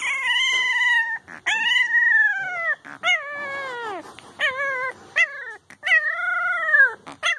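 A young bulldog-type puppy howling: a run of about six high, wavering howls, each arching up and then sliding down in pitch, the longest about a second.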